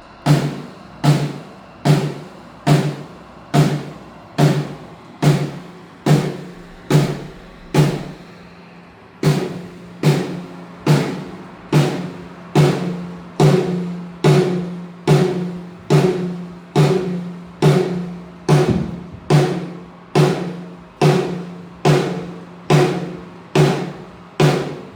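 A single drum of a drum kit struck over and over at an even, slow pace, about one hit every 0.8 seconds with a short pause about eight seconds in. Each hit rings briefly at the same low pitch. This is a drum being checked hit by hit so its sound can be set during a sound check.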